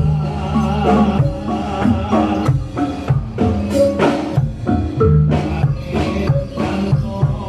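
Javanese percussion ensemble accompanying a Reog Bantul dance: a rhythmic pattern of hand-drum strokes under ringing, pitched struck-metal percussion.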